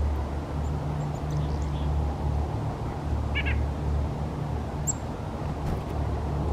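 Two brief small-songbird calls over a steady low rumble: a short call about three seconds in and a single very high chirp near five seconds.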